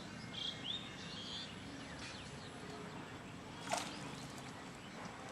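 Outdoor rural ambience with a few short, high bird chirps in the first second and one brief sharp sound about three and a half seconds in.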